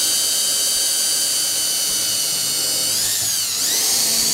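Cordless drill running at high speed, drilling a screw hole into the landing-gear mount, with a steady high whine. About three seconds in the whine dips in pitch briefly, then recovers before the drill cuts off.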